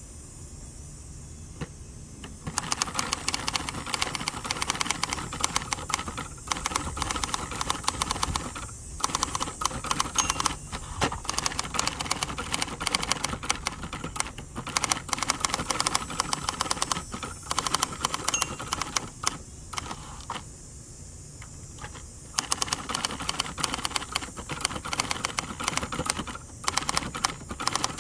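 1967 second-generation Hermes 3000 manual typewriter being typed on: a fast run of key and typebar strikes starting about two and a half seconds in, broken by a couple of short pauses.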